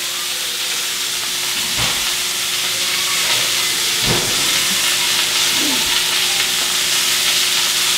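Steak searing in a hot pan on the stove, a steady sizzle, with a couple of soft knocks about two and four seconds in.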